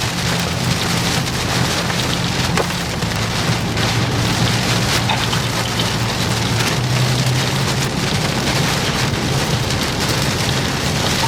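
Rain hitting a vehicle's roof and windshield, heard from inside the cabin: a steady, even hiss over a low engine and road drone, with a few sharper ticks of drops.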